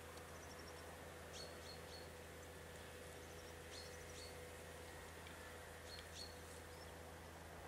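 Faint, short high chirps of small birds, a few at a time in scattered clusters, over a low steady hum.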